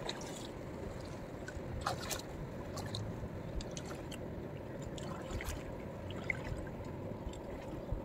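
Shallow seawater lapping and trickling, with scattered small splashes and clicks from people wading and handling a stake net.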